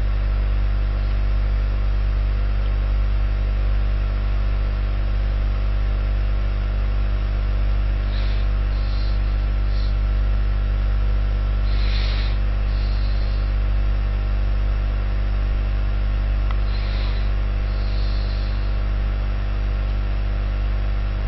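Steady electrical mains hum in the recording, heavy in the bass with a stack of steady overtones. A few faint soft sounds come and go in the second half.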